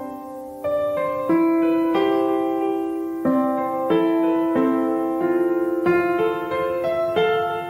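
Background piano music: gentle notes and chords struck about every two-thirds of a second, each ringing and fading.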